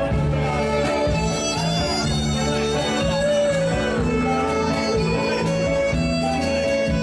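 Live instrumental folk-style music: a violin playing a wavering melody over guitar and a steady bass.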